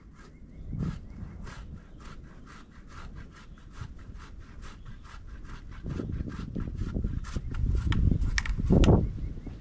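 Fiskars pole saw cutting relief cuts into a tree trunk overhead, in even rasping strokes about three a second. A low rumble swells in over the last few seconds.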